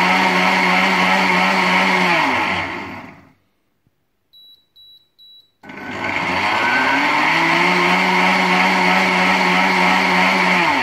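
Blender motor running at speed on its self-cleaning program with foamy water in the jug, winding down about two seconds in. Three short high beeps follow, then the motor starts again, speeds up and runs steadily.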